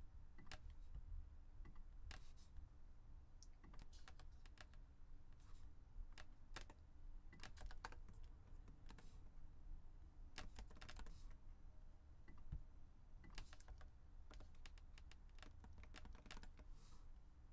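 Faint computer keyboard typing: scattered keystroke clicks in short, irregular runs with pauses between.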